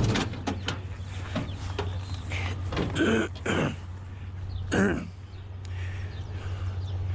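A few knocks and clunks as a scrap microwave oven is shifted and set into place in a vehicle, over a steady low hum.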